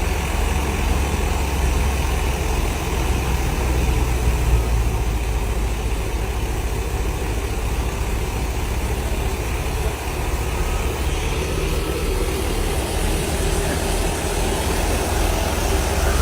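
Heavy farm machinery engine running steadily during wheat harvesting, with a deep, even drone.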